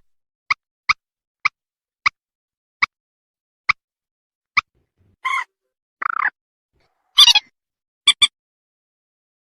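Recorded mandar (rail) calls played as a bird-hunting lure: a string of short sharp call notes about half a second to a second apart, then three longer, rougher calls and a quick double note near the end.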